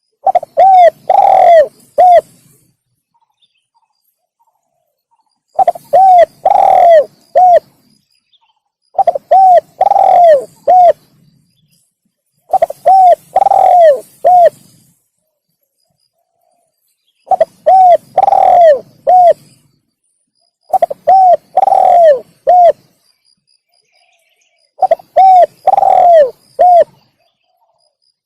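Spotted dove (tekukur) song: seven phrases of about four arched coos each, one phrase every three to four seconds, with silence between. It is played as a lure call to draw in wild spotted doves.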